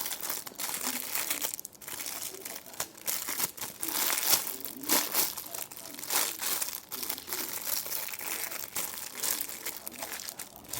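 Plastic packaging crinkling and rustling irregularly as a squishy toy in its wrapper is handled and unwrapped.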